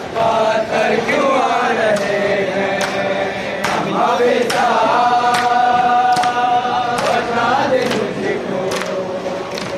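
Men chanting a noha together, with one long held note in the middle, over evenly paced slaps of hands beating on chests in matam, a little faster than one a second.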